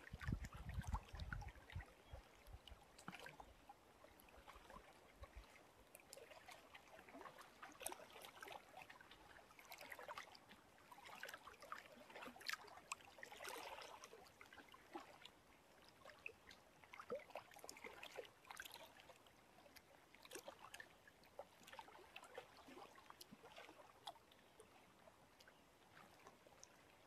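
Small lake waves lapping and splashing softly, an irregular scatter of faint wet ticks and splashes. A low wind rumble on the microphone dies away in the first few seconds.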